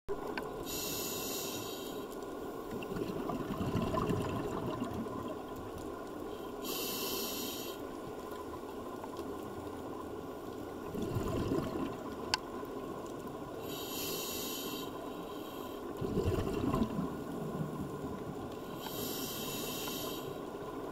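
Scuba diver breathing through a regulator underwater: a hissing inhale about every six seconds, each followed by a low, bubbling rumble of exhaled air.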